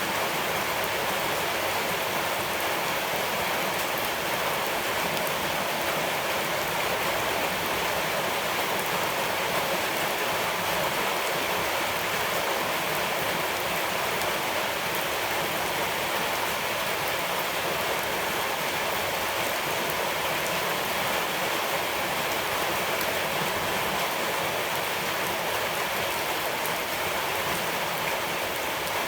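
Steady, even rushing of water, with no breaks or single events standing out.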